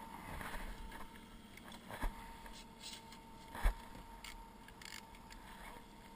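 Outboard motor running steadily on a trolling boat, a constant hum. Two sharp knocks of gear against the hull, the louder about three and a half seconds in.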